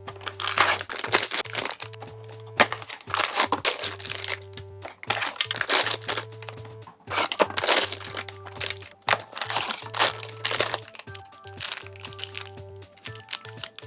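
Plastic packaging of candy-toy boxes crinkling and crackling as they are handled, in repeated bursts of about a second, over background music.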